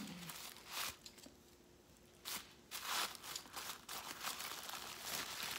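Tissue paper crinkling and rustling as a small wrapped souvenir is unwrapped by hand, in uneven bursts: one short rustle, a quiet pause of about a second, then steadier crinkling from a little past the middle.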